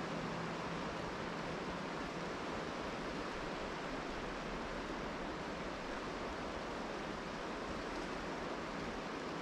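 Steady, even rushing noise of rain and river water.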